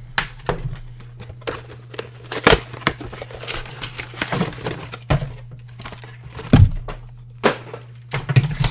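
Plastic packaging being handled and crinkled, with tearing and a series of sharp clicks and knocks, over a steady low hum.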